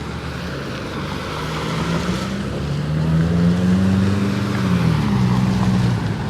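A motor vehicle's engine passing close by, its pitch climbing as it grows louder toward the middle and then dropping off as it moves away, over wind noise on the microphone.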